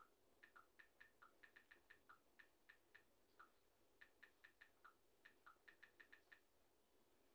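Faint, irregular light clicking, several clicks a second, which stops about six seconds in.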